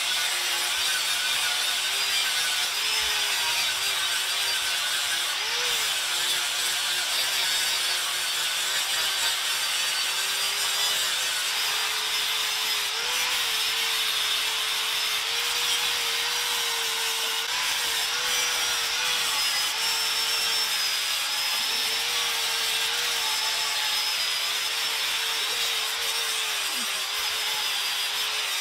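Handheld electric power tool running steadily against wood, a continuous whine over the grinding noise of the cut, its pitch dipping and recovering slightly as the load changes.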